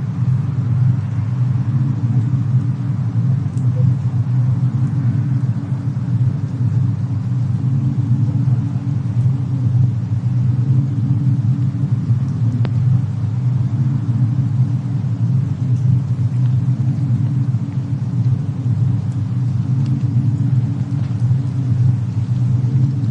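Fireplace and snowstorm ambience: a steady low rumble with a few faint fire crackles now and then.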